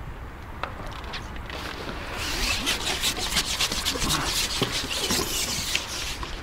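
Spinning reel on a match rod being wound in, a fast rasping whirr of fine ticks starting about two seconds in and stopping near the end.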